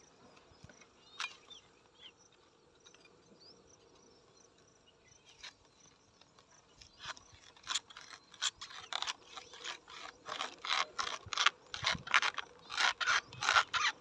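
Toddy tapper's knife shaving and scraping the fruit bunch of a palmyra palm to tap it for toddy. At first only a few light clicks, then from about halfway a run of quick scraping strokes, a few a second, growing louder.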